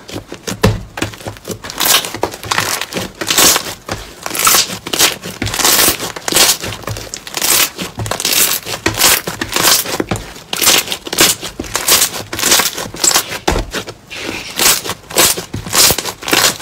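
Blue slime being kneaded and squeezed by hand, giving repeated crackling squishes about once or twice a second.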